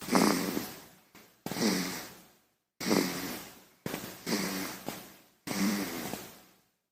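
Sleeping baby snoring: a short, rough, pitched snore on each breath, about five in quick succession, each starting sharply and fading away.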